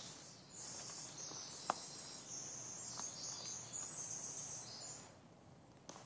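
A high-pitched, continuous chattering trill from a small forest animal, lasting about four and a half seconds, with a sharp click partway through and a fainter one a little later.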